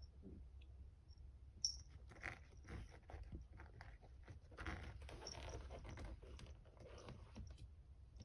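A cat chewing and crunching, likely on dry food: one sharp click about a second and a half in, then irregular faint crunches that stop near the end.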